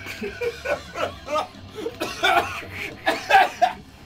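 People laughing in repeated short bursts, loudest about two and three seconds in.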